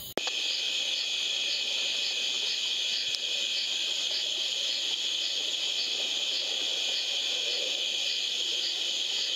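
Chorus of night insects: a steady high-pitched trill with a regular pulsing running through it.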